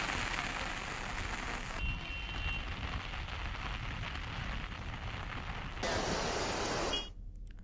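Rain falling, a steady hiss that changes abruptly a couple of times and drops to a faint hiss near the end.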